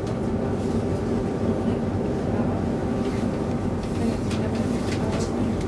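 Steady hum and rumble inside the passenger car of an X10 electric commuter train, with faint clicks here and there.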